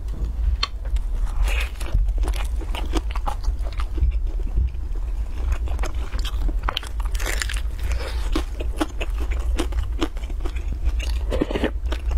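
Close-up crunching bites and chewing of a crispy pan-fried stuffed flatbread: many short crackly crunches, over a steady low hum.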